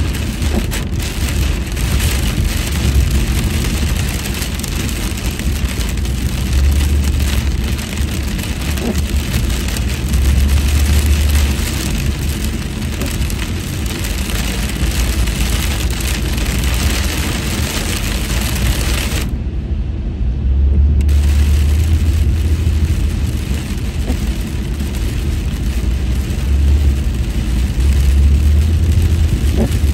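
Steady noise of a car driving in heavy rain, heard from inside the cabin: a low road and engine rumble that swells and eases, under the hiss of rain and wet tyres. The hiss cuts out for about two seconds about two-thirds of the way through, while the rumble carries on.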